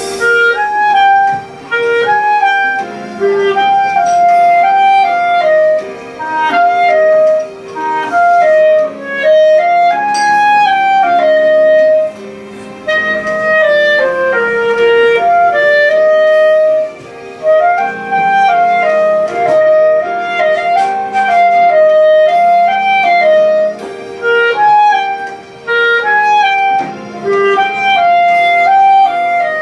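Solo clarinet playing a melody of stepping, held notes in short phrases broken by brief pauses for breath, with lower sustained accompaniment notes underneath.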